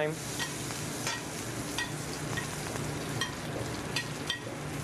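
A lamb chop sizzling in hot butter in a sauté pan as it is spoon-basted: a steady sizzle with scattered small ticks.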